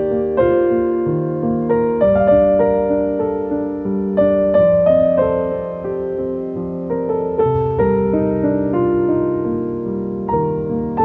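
Background piano music: slow, gentle chords and a melody played at an even pace.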